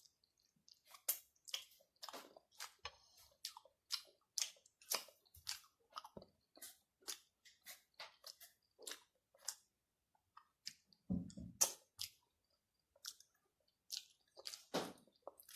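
Close-miked chewing of food: a run of short mouth clicks and crunches, about two a second, pausing briefly past the middle, with a louder low thump about eleven seconds in.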